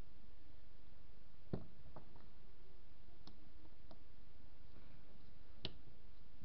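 A few scattered clicks and knocks of a screwdriver and small metal carburettor parts being handled while a Bernard type 427 engine's carburettor is taken apart, with the loudest knocks about a second and a half in and near the end.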